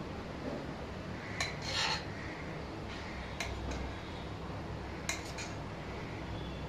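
Metal spoon clinking and scraping against a metal pot and a steel-lined container as syrup-soaked gulab jamuns are scooped out one at a time. It makes a few scattered light clinks over a steady low hum.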